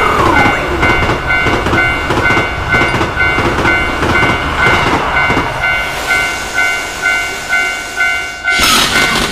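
Japanese level-crossing warning bell ringing steadily, about two strikes a second, over a train's rumble and the regular clatter of its wheels over the rail joints. Near the end a loud rushing burst with a falling tone cuts in.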